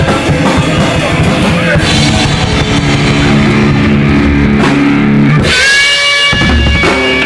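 Rock band playing with drum kit, bass and electric guitar. Rapid drum hits for the first couple of seconds give way to held notes, and about five and a half seconds in a sustained electric guitar note rings out and bends slightly.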